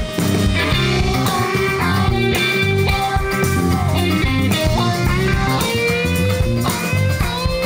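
Live rock band playing an instrumental break without vocals: an electric guitar plays a lead with pitch bends over bass guitar and drums.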